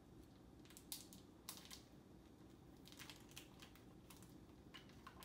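Faint scattered clicks and crinkles of a plastic package of ground turkey being cut and pulled open by hand.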